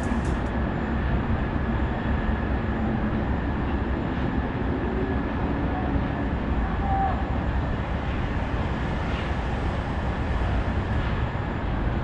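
Steady low rumble of downtown city noise, traffic-like, with no bells ringing. Electronic music cuts off about half a second in.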